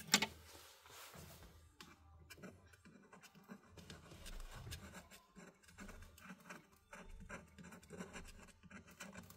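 Light scratching and small scattered clicks of hands and small tools handling a smartphone's parts during a screen repair, with one sharper click right at the start.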